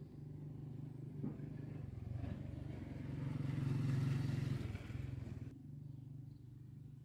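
A vehicle engine running over a steady low hum. It swells to its loudest about four seconds in, then drops away sharply at about five and a half seconds.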